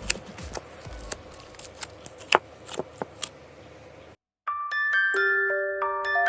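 Scattered sharp clicks over a faint steady background, which cut off about four seconds in; after a short silence, a bright tune on glockenspiel-like mallet bells begins.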